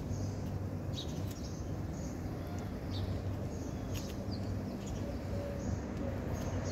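Small birds chirping now and then, short high chirps over a steady low hum.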